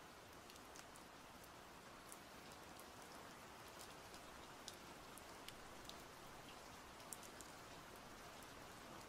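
Faint steady rain, with scattered single drops ticking sharply.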